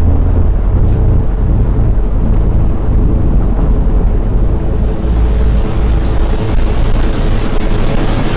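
Deep, loud rumble with a steady low hum, like a storm or a hovering craft, with a hiss of rain building from about five seconds in: cinematic sound effects.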